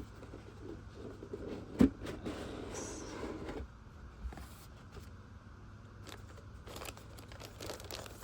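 Hands rustling and handling a plastic model kit's box and bagged parts, with one sharp click about two seconds in.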